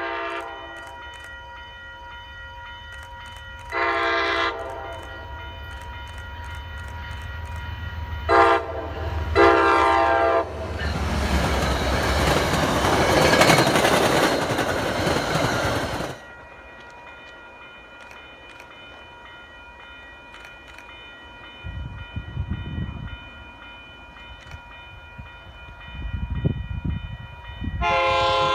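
An MBTA HSP46 diesel locomotive sounds its horn for the grade crossing in several blasts over the first ten seconds, the third one short. The train then passes at speed in a loud rush of engine and wheel noise for about five seconds, with a crossing bell ringing under it. Near the end a second approaching train rumbles and sounds its horn.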